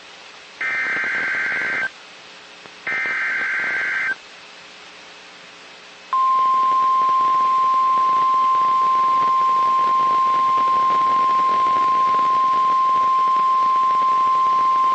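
The last two of three SAME (Specific Area Message Encoding) header data bursts of an Emergency Alert System activation: harsh, buzzy digital screeches, each about a second long with a second's pause between. About six seconds in comes a steady single-pitch NOAA Weather Radio 1050 Hz warning alarm tone, held for about nine seconds, which signals that a warning message is about to be read.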